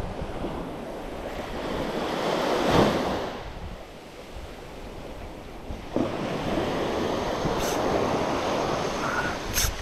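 Small waves breaking at the edge of a sandy beach and washing up the shore in a steady rush, swelling about three seconds in and again from about six seconds.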